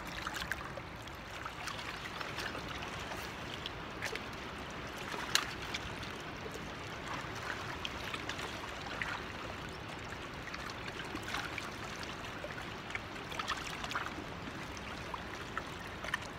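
River water washing against a rocky bank: a steady rushing hiss, with a few faint clicks and ticks scattered through it.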